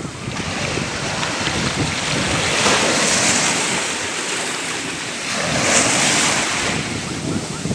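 Ocean waves washing in, a steady rush of surf that swells twice as waves break, about three seconds in and again near six seconds.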